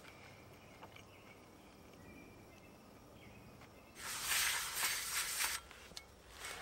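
Quiet outdoor background for about four seconds, then a paper towel rubbed hard over a metal pan, a loud scratchy wiping that pauses briefly and starts again near the end.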